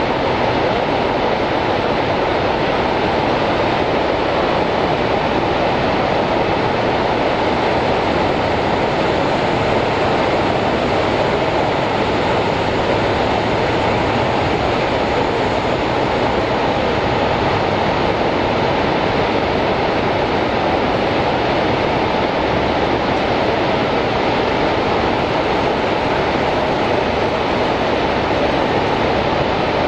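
Steady rush of water pouring over Niagara's American Falls: a loud, even noise with no breaks.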